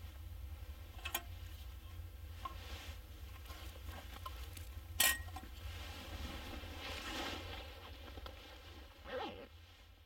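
Small handling sounds: a few sharp clicks and clinks, the loudest about five seconds in, with softer rustles, over a steady low rumble.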